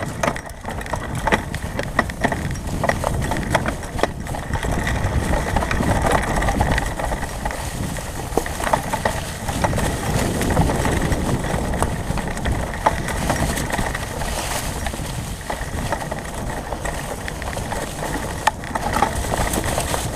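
Fat-tire mountain bike rolling along a dirt trail covered in dry fallen leaves: a steady rumble of tyre and ride noise with many small clicks and knocks from the bike over the rough ground.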